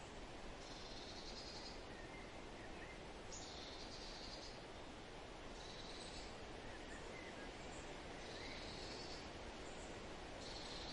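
Faint rural outdoor ambience: a steady hiss, with a short high trill about every two and a half seconds and a few faint bird chirps.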